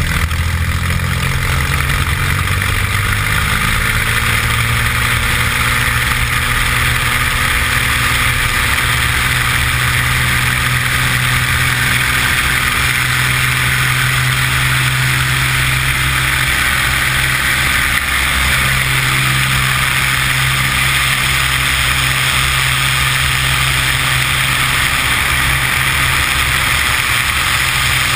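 Beechcraft BE33 Debonair's six-cylinder piston engine and propeller at takeoff power during the takeoff roll. The engine tone steps up about a second in and then holds steady, while a rush of air builds as the plane gathers speed.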